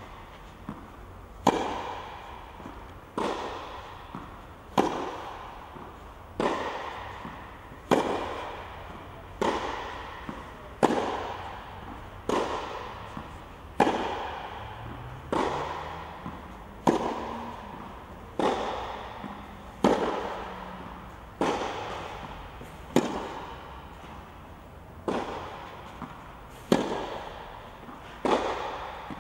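Tennis ball struck by racket after racket, one sharp hit about every second and a half, each echoing in the large hall.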